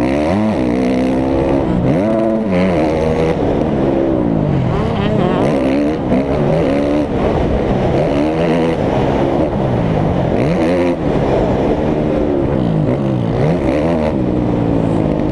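Dirt bike engine revving hard and backing off again and again while riding a motocross track. Its pitch climbs and falls every second or two through the throttle and gear changes.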